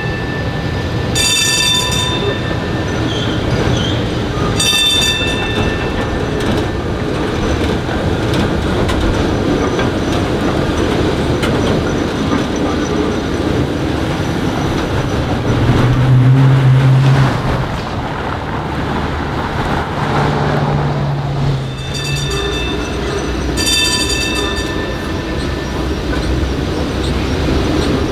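PCC streetcars rolling over street track, their steel wheels squealing in short high-pitched bursts on the curve, three times in the first few seconds and twice more near the end. A low drone rises twice in the second half.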